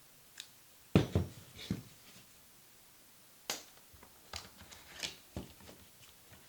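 Several separate sharp plastic clicks and knocks as a Canon BG-E20 battery grip and its battery tray are handled and fitted to a Canon 5D Mark IV camera body. The loudest knock comes about a second in.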